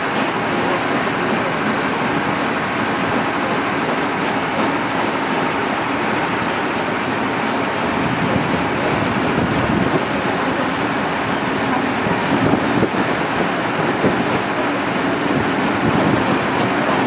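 Steam-hauled train of vintage carriages behind NSWGR 36-class 4-6-0 locomotive 3642, heard from an open carriage window as it pulls out of the platform: a steady rushing noise that grows a little louder past the middle as the train gathers speed.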